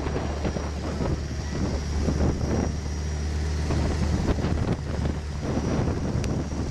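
Boat engine running steadily with a low drone, with wind buffeting the microphone.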